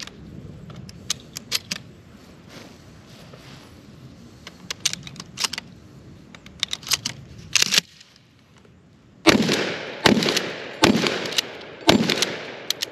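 Shotgun fired four times in quick succession, about a second apart, each blast followed by a short echoing tail. Lighter clicks and taps come before the shots.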